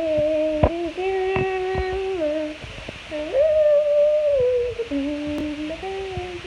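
A voice humming a wordless tune in long held notes, stepping between pitches and jumping up about an octave in the middle, with a few light handling clicks.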